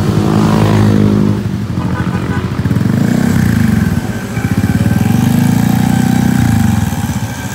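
Honda Vario 125 scooter's single-cylinder engine through a CLD C1 aftermarket exhaust, ridden at a normal pace. The exhaust note drops in pitch in the first second or so, then swells and eases twice as the throttle is worked.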